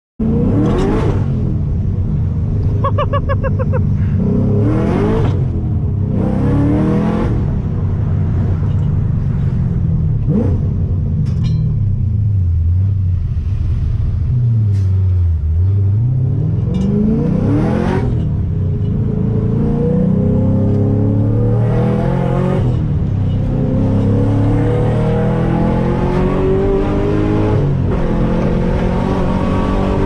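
Nissan 350Z's 3.5-litre V6 heard from inside the cabin while driving, its note climbing and dropping again and again as the car accelerates and changes gear through the manual gearbox.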